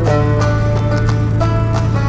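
Background music with a steady beat and held notes, over a constant low hum.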